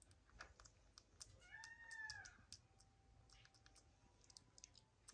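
Faint scattered soft clicks as a baby hamadryas baboon picks through a kitten's fur while grooming it, with one short mew from the kitten about a second and a half in, rising then falling in pitch.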